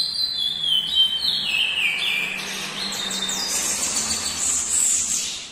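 Curió (chestnut-bellied seed finch) singing: a run of clear whistled notes stepping up and down, moving into higher notes in the second half and fading out near the end.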